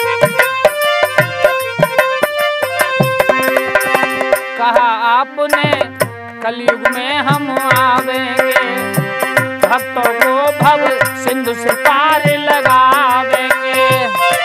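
Harmonium playing a melody over a dholak's quick, even beat, the drum's low thuds and sharp slaps running throughout: an instrumental interlude of a devotional bhajan.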